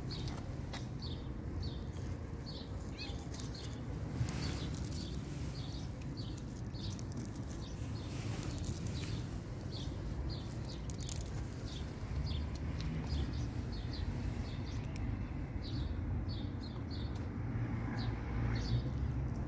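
A cat crunching dry kibble, short crisp crunches coming a few times a second in bouts with brief pauses, over a steady low rumble.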